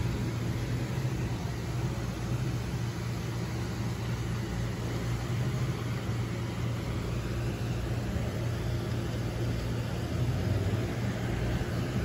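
Steady low mechanical hum and rumble, unchanging apart from growing a little louder about ten seconds in.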